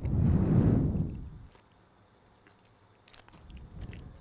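A loud breathy rush of noise lasting about a second and a half at the start, then scattered soft computer keyboard clicks as a command is typed.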